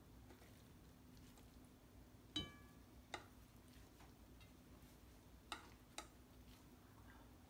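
Four quiet clinks and taps of wooden chopsticks and an enamel plate against a glass salad bowl as grilled squash slices are slid in. The first, a little over two seconds in, is the loudest and rings briefly.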